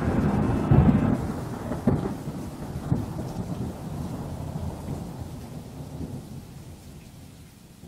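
Rolling thunder rumble fading away, with a few louder cracks in the first three seconds.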